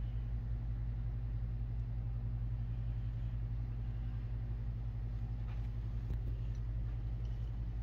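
Steady low hum of room background noise, unchanging throughout, with a few faint clicks a little past the middle.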